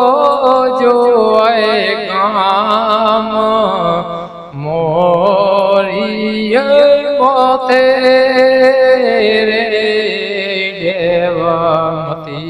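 Devotional chant-like singing: a voice holding long, wavering notes that slide from pitch to pitch, over musical accompaniment with a steady low drone.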